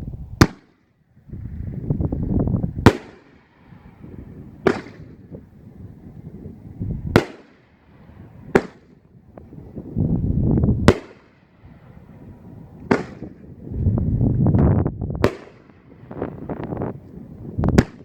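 A nine-shot large-shell firework cake firing: nine sharp booms about two seconds apart, with low rumbling between the shots.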